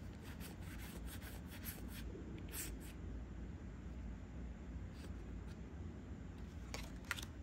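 Quiet handling of trading cards: light rubbing and soft scraping ticks as cards slide against each other and are turned in the hand, thickest in the first few seconds and again near the end.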